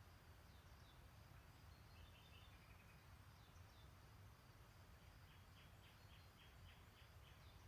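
Faint birdsong: scattered high chirps, a short trill about two seconds in, and a run of about eight quick repeated notes from about five and a half seconds in, over a low steady rumble.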